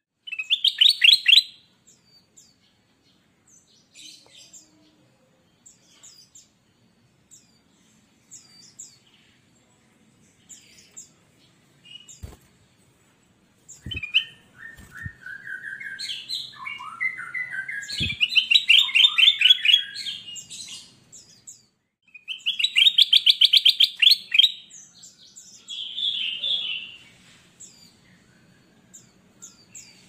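Ruby-throated bulbul (kutilang emas) singing in bursts: a fast trill near the start, scattered short high chips, then a long run of warbled phrases and rapid trills in the second half. A few sharp clicks fall in the middle.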